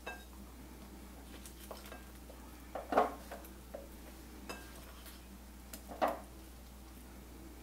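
Light, scattered clinks and knocks of dishes as bell pepper strips are dropped by hand from a ceramic plate into a slow cooker crock, with two louder knocks about three and six seconds in.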